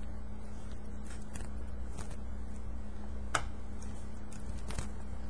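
A few small, sharp clicks and taps as fingers work tiny antenna connectors onto a laptop's Intel 6230 mini-PCIe Wi-Fi card; the sharpest click comes about three seconds in. A steady low hum runs underneath.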